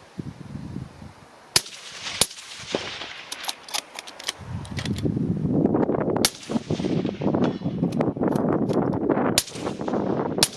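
Sharp reports of Tikka T3X bolt-action rifles firing, several shots at uneven spacing through the stretch. Wind rumble on the microphone grows from about halfway.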